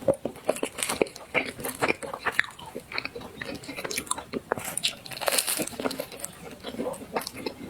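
A person biting and chewing dessert close to the microphone, with many short, irregular crunches.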